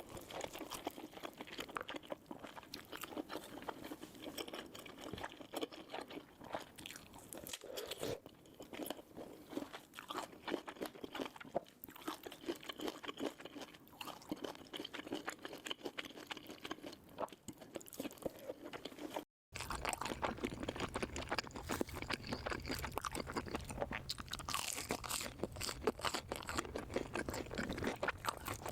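Close-miked crunchy chewing and biting: a dense, continuous run of crackling crunches. About two-thirds in there is a brief dropout, after which a low steady hum sits under the chewing.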